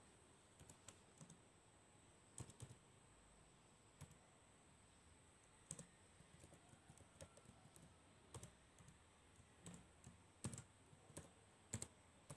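Computer keyboard typing: faint, irregular key clicks.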